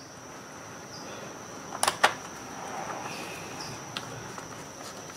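Phillips screwdriver driving a small screw into the plastic water-valve housing of a Brondell Swash 300 bidet, with two sharp clicks about two seconds in and a few lighter ticks later. A steady high-pitched whine runs underneath.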